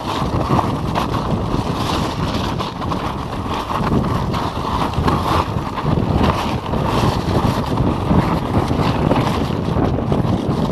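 Wind buffeting the microphone while a mountain bike rolls fast down a loose rocky trail, its tyres crunching over gravel and stones and the bike rattling with many small knocks.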